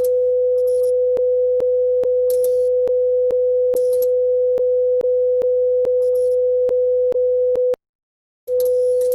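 Emergency alert alarm tone: one loud, steady mid-pitched tone over a low hum, with regular clicks a little over two a second and bursts of hiss. Near the end it cuts out for under a second, then comes back.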